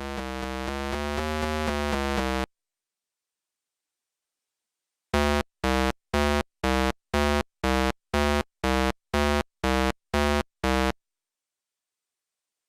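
Synthesized electronic tones: a steady held tone that swells and then cuts off suddenly, a short silence, then twelve short identical beeps at about two a second.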